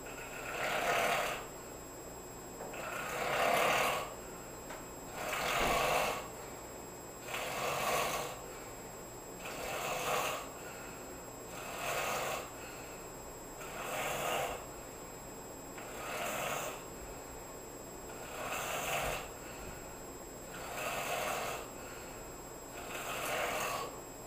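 A sleeping person snoring, one rasping breath about every two seconds, eleven in all, the first few a little louder than the rest.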